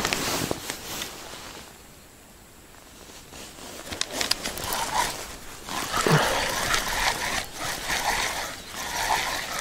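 Water trickling and splashing at the edge of a river in flood, with scattered small knocks and clicks; it quiets for a second or two near the start, then gets busier again.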